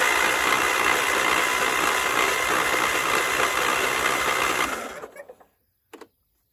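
Electric starter cranking a 26 hp Briggs & Stratton Intek V-twin engine. It spins up with a rising whine, turns over steadily for about five seconds, then winds down. The once-seized engine now turns freely. A brief click follows near the end.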